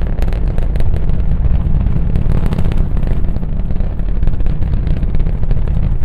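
Falcon Heavy rocket's 27 Merlin engines during ascent: a deep, steady rumble shot through with rapid crackling.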